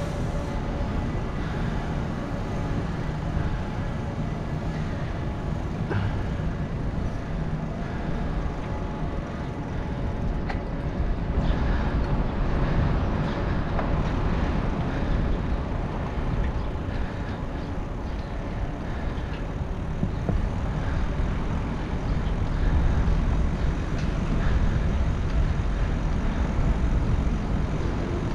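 Steady low rumble of wind and road noise on a helmet-mounted action camera's microphone while riding a bicycle on city streets. It gets louder in stretches from about eleven seconds in.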